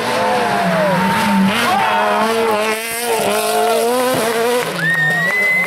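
Renault Clio III rally car engine revving hard as the car drives past on a snowy road, its pitch rising and falling through the gears, with a sudden drop about four seconds in. A high, steady whistle-like tone begins near the end.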